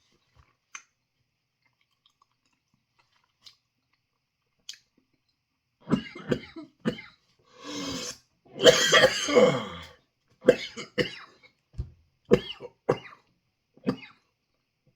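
A man in a coughing fit, harsh repeated coughs with a long hacking cough and throat-clearing in the middle, starting about six seconds in. The coughing is caused by fiery chili dust from the food he is eating, caught in the back of his throat.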